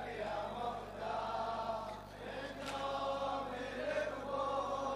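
Men's voices chanting a mourning lament together in long, held notes, a Shia latmiya refrain, with one sharp slap about two and a half seconds in.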